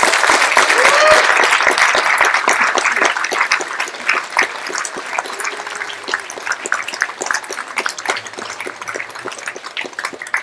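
Audience applauding, loudest at first and dying away toward the end.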